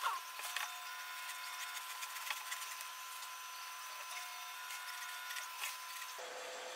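Faint scratching and rustling as foam padding is pressed onto a plywood board and trimmed with a kitchen knife, with a short squeak right at the start and scattered small clicks. A faint steady whine sits underneath.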